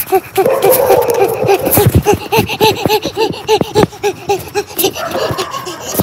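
A person laughing in a quick run of 'ha-ha' bursts, about four or five a second, over sharp knocks from the camera being handled.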